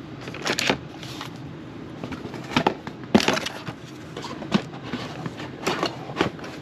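Sharp plastic clicks and cracks, about seven spread out, as an old wall thermostat is pried off its base and handled.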